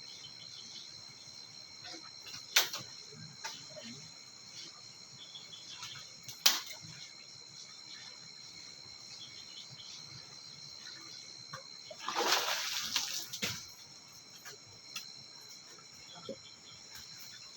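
Steady high chirring of insects, with two sharp clicks a few seconds apart and a brief splash of water about twelve seconds in.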